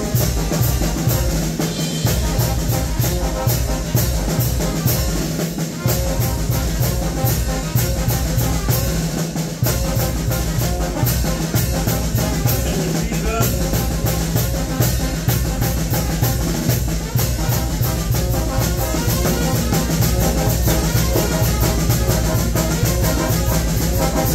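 Mexican brass band (banda de viento) playing live: brass horns and a tuba over a steady drum beat.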